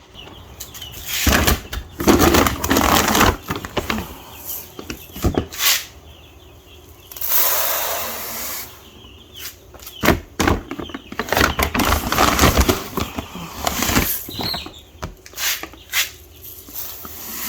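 Clattering, knocking and rustling while a chick feeder is handled and filled, with a longer rushing stretch about seven seconds in.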